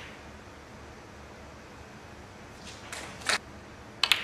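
Snooker balls clicking: a few short knocks about three seconds in, then a sharp, louder double click near the end as the cue tip strikes the cue ball and the cue ball hits a red.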